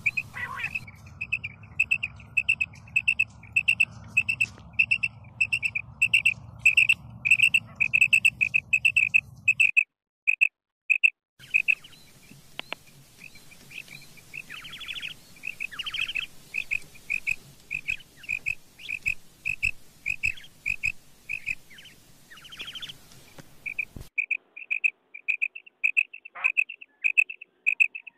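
Female common quail calling: a rapid run of short, high, clipped notes, about three a second, with a few harsher, longer notes mixed in. The recording breaks off briefly about ten seconds in and again near the end before the calling resumes.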